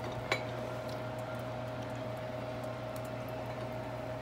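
Pot of chicken broth boiling under a steady hum, with a single sharp clink about a third of a second in.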